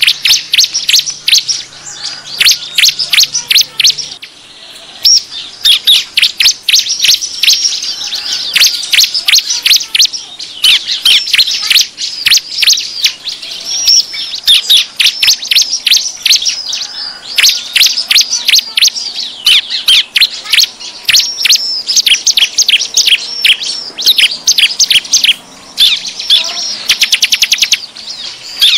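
Bar-winged prinia (ciblek) calling in a dense, agitated run of sharp, high chirps, several a second without a break, with a fast trill near the end. This is the noisy 'ribut' ciblek call used as a lure to draw in wild birds.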